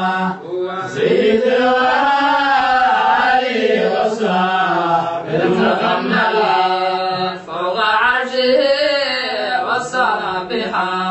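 Men's voices chanting a Somali devotional qasida in long, melodic held lines, without a clear beat.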